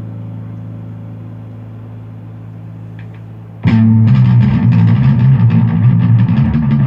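Guitar: a held chord fades slowly, then about three and a half seconds in, loud rhythmic strumming starts suddenly.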